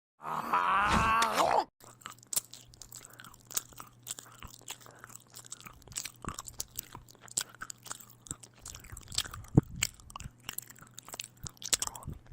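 Crunchy chewing and biting: irregular sharp crunches and clicks of something being eaten, after a short loud pitched vocal sound in the first second and a half. A faint steady low hum runs under the chewing.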